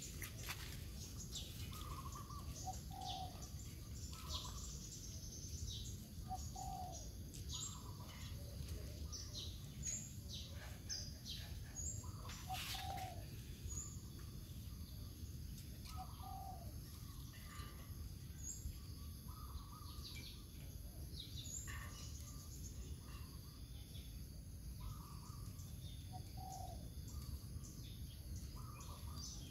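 Birds calling: a short two-note call repeats every couple of seconds, with thin high chirps scattered over it, all above a steady low rumble.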